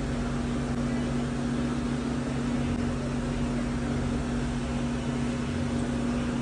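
Steady low machine hum with an even hiss behind it.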